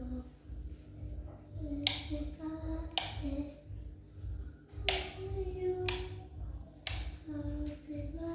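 Background music: a pitched melody over a steady pulsing bass beat, with sharp clap-like hits about every one to two seconds.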